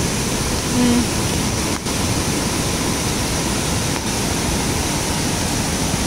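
River rapids: fast, swollen water rushing over rocks in a steady, unbroken wash of noise, with a brief low tone about a second in.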